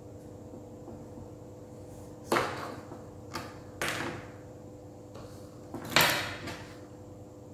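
A carving knife working a pumpkin: four short, sudden cutting or scraping sounds, the loudest about six seconds in, over a steady faint hum.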